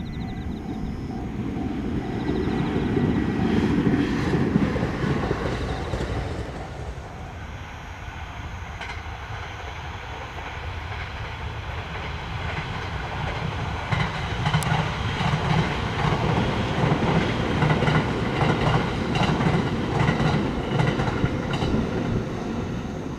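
Train passing a level crossing close by, wheels clattering over the rail joints. It swells a few seconds in, eases, then swells again for much of the second half with rapid wheel clacks.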